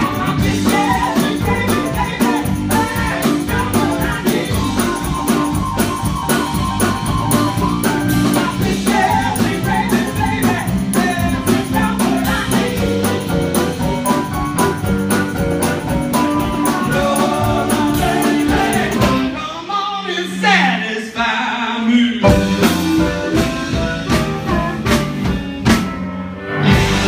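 Live blues band playing loud: electric guitar, bass, drum kit and keyboard. About twenty seconds in, the drums stop for a couple of seconds under a sliding, bending line, then the full band comes back in.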